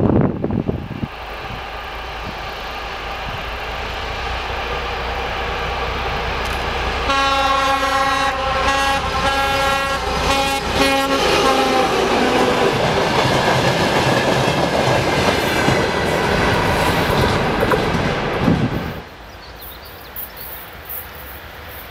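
ChME3E diesel shunting locomotive hauling a freight train, drawing closer and louder, sounding its horn in a series of blasts from about seven to eleven seconds in, then passing with the wagons' wheels clattering over the rail joints. The sound drops suddenly a little before the end to a much quieter, distant train.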